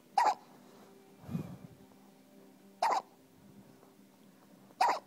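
Baby hiccuping three times, about two seconds apart: short, sharp hiccups that sound like a little puppy. A softer low sound comes between the first two.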